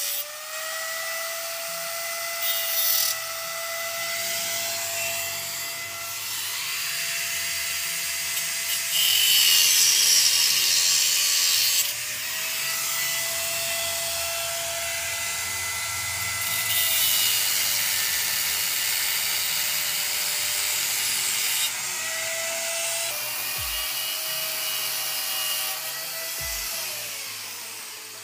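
Handheld electric angle grinder cutting steel at a steel-plate door frame: a steady motor whine over a harsh grinding hiss. The hiss is loudest for a few seconds about a third of the way in, and the whine dips briefly in pitch several times as the disc bites.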